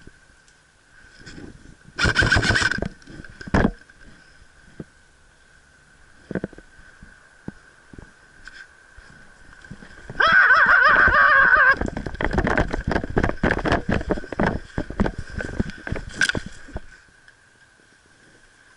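Airsoft rifles firing full-auto bursts: a short burst about two seconds in and a longer one of about a second and a half around ten seconds in, followed by several seconds of rapid scattered shots and clicks. A faint steady high tone runs underneath.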